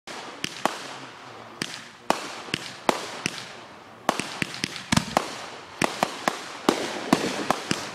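Fireworks exploding: sharp bangs at irregular intervals, often several a second, over a steady hiss. A heavier, deeper bang comes about five seconds in.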